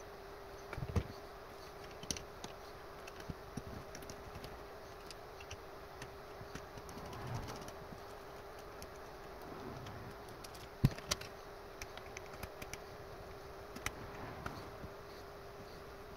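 Hands assembling plastic printer parts, a stepper motor and screws: scattered small clicks and knocks, with a sharp knock about a second in and a sharper click about eleven seconds in, over a steady hum.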